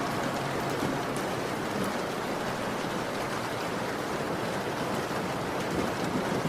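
Steady rainfall: a dense, even hiss of rain with faint scattered drop ticks.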